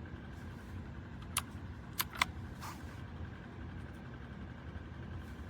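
A few sharp key clicks from a mechanical keyboard, over a steady low background rumble.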